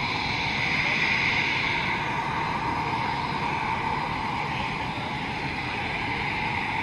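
Eurofighter Typhoon's twin EJ200 turbofan engines running at taxi power: a steady high jet whine over a low rumble, swelling slightly about a second in.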